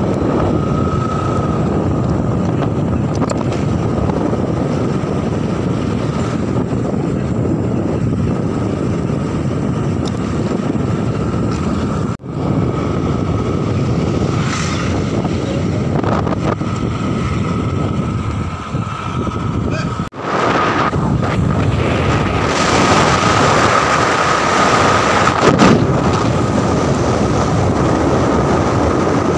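Motorcycle riding along a road, its engine running steadily under wind rushing over the microphone, with a thin steady whine through it. The sound drops out briefly twice.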